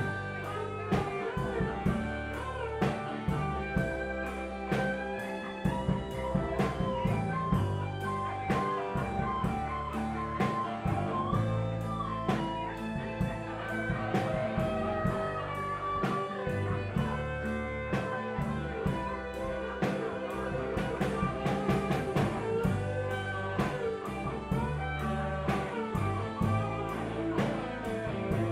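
Live band playing an instrumental passage: electric guitar lead with bending notes over bass guitar and a drum kit keeping a steady beat.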